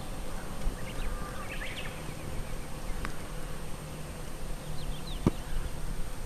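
Quiet outdoor ambience on an empty mountain road with no passing traffic: a steady low rumble, a few faint bird chirps, and two faint clicks.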